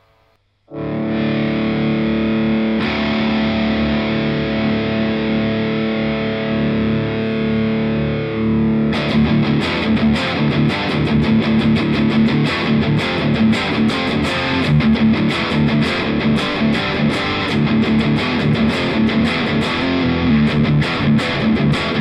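Overdriven electric guitar through a Fender Bassbreaker 15 valve amp. A chord comes in about a second in and is left to ring. From about nine seconds the playing changes to a fast, driving strummed rhythm.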